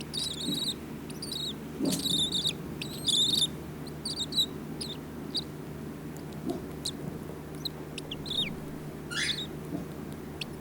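Baby bird chick, six days old and eyes still closed, making high, squeaky begging calls for food: quick runs of chirps in the first few seconds, then sparser single chirps, with one longer falling call about nine seconds in.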